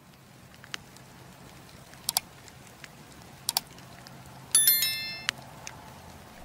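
Notification bell sound effect of a subscribe-button animation: a bright ding of several tones, ringing for just under a second about four and a half seconds in. Before it come two quick pairs of clicks, over faint scattered crackles from the campfire footage.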